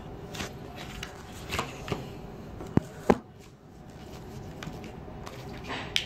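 Hands handling packaging: rustling and scattered light taps, with two sharp clicks close together about three seconds in.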